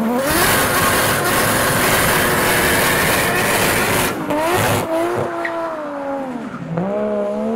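Nissan Skyline R33's straight-six engine revving hard as the car pulls away, a loud full-throttle blast lasting about four seconds. After that the engine note climbs and falls in shorter revs, then rises again near the end.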